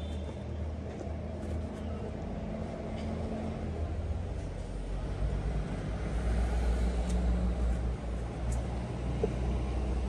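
A motor engine running, a low steady rumble that grows louder about halfway through and eases near the end, with a few light knocks.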